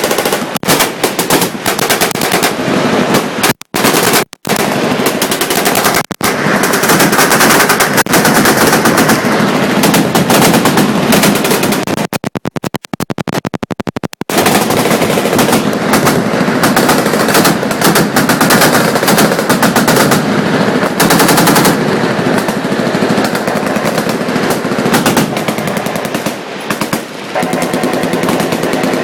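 Machine guns firing long runs of automatic fire, shots packed so close they run together. There are short breaks about four seconds in and again around thirteen seconds.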